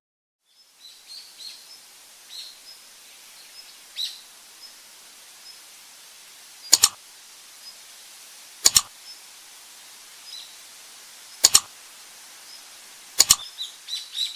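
Small birds chirping in short, high notes over a steady hiss, broken four times by a loud, sharp double click, about every two seconds in the second half.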